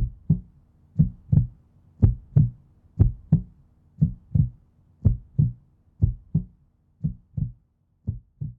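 Heartbeat sound effect: double lub-dub thumps about once a second, growing fainter toward the end.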